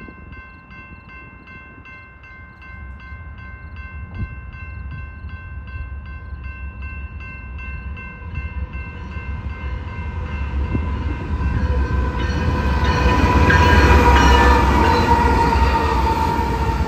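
Grade-crossing warning bell ringing at an even rate, about two to three strikes a second. The rumble of a BNSF coal train's diesel locomotives and wheels grows steadily louder as the train approaches, and peaks in the last few seconds as the lead locomotives pass close by.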